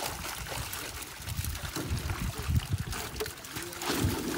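Pond water splashing and trickling around people wading and handling netted fish, with short low knocks and bumps throughout.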